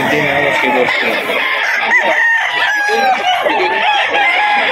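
Many caged roosters crowing and clucking at once, a dense overlapping chorus of calls with no pause.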